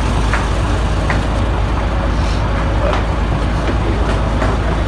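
Small fishing boat's engine idling steadily, a low even hum, with a few light knocks as bags are set down on the deck.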